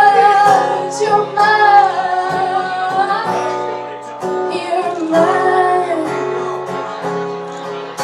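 A woman singing with acoustic guitar accompaniment, in held, gliding phrases.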